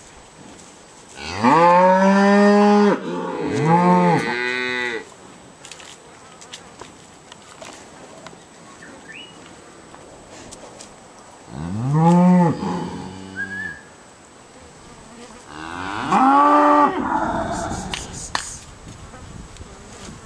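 Angus cattle mooing: four long moos, each arching up and down in pitch, two close together about a second in, another around twelve seconds and a last one around sixteen seconds.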